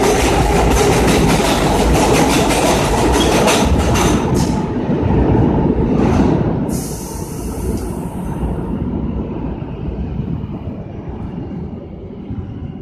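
R142A subway train on the 6 line running past with its wheels clicking over the rail joints, then its rumble fading steadily as it draws away. A short hiss comes about seven seconds in.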